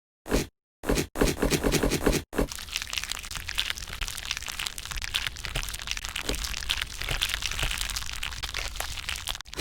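Slime being squeezed and worked by hand, giving dense crackling and popping. It comes in a few short clips at first, then one longer unbroken stretch from about two seconds in.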